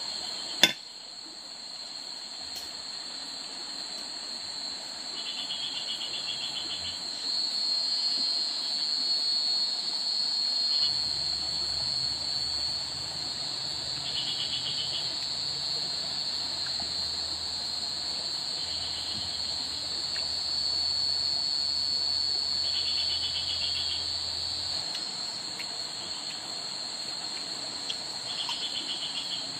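Steady, high-pitched chorus of forest insects such as crickets or cicadas, with a second, pulsing insect call that comes and goes every few seconds. A single sharp knock sounds just under a second in.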